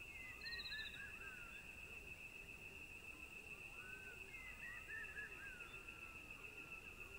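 Faint outdoor nature sound: a steady high-pitched insect drone with birds chirping over it in two short bursts of calls.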